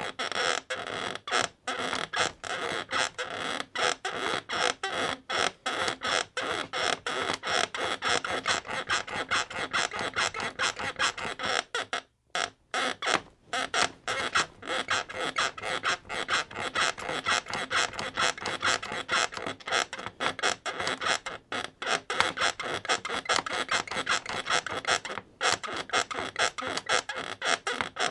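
Bed creaking in a rapid run of short, repeated creaks, with a brief pause about twelve seconds in.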